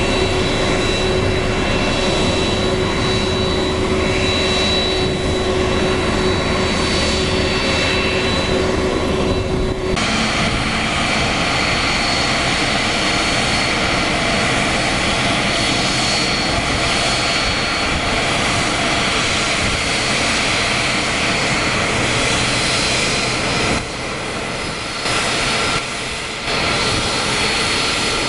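Boeing 767-300 freighter's jet engines running at low power with a steady whine, at pushback and taxi. The sound changes abruptly about ten seconds in and drops briefly twice near the end.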